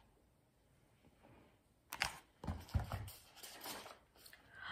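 A hardcover picture book being handled and lowered: a sharp click about two seconds in, then a few soft knocks and faint rustling.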